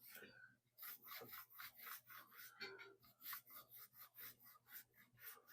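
A rag wiping back and forth inside a bicycle rim's bed, scrubbing off old rim-tape residue with cleaner: faint, quick, even strokes, about three a second.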